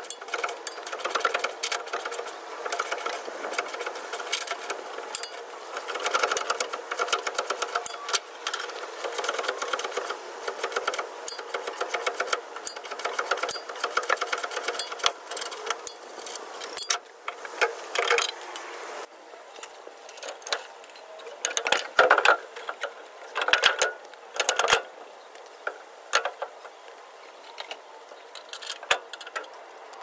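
Ratchet wrench on a long extension clicking rapidly as it turns a rear leaf-spring mounting bolt on a Chevy Silverado. About two-thirds of the way through, the fast clicking gives way to slower, scattered, louder clicks and knocks.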